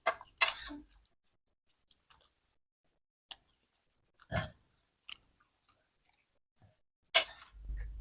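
A person chewing food, with scattered short wet clicks and smacks of the mouth, a few at a time with pauses between.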